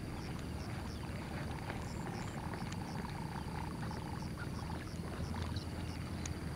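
Steady low rumble of outdoor background noise, with faint, scattered high chirps and ticks.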